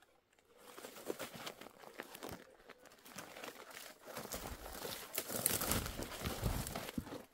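Dry twigs and leaves crackling and rustling against a person pushing through dry desert scrub, with heavier footfalls on dry, stony ground in the second half.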